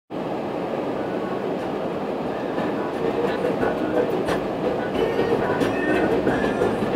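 Steady tyre and engine noise inside a BMW's cabin as it drives along.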